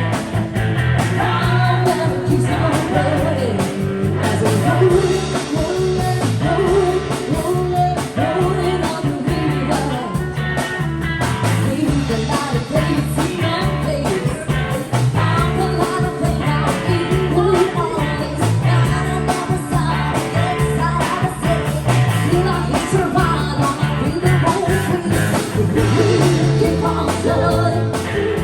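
Rock and roll song playing, with singing over bass, guitar and a steady drum beat.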